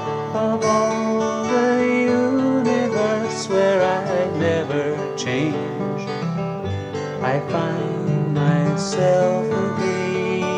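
Acoustic guitar music, with a melody line bending in pitch above the chords.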